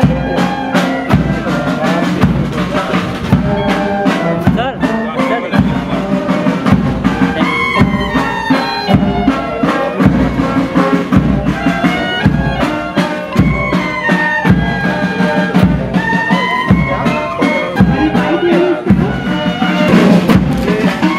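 Band music: wind instruments playing a melody over a steady drum beat.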